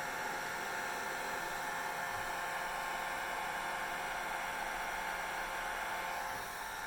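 Hair dryer running steadily: a constant rush of air with a steady whine over it, dipping slightly in level near the end.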